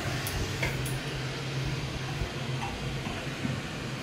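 A steady low mechanical hum with an even hiss over it, with two faint clicks in the first second.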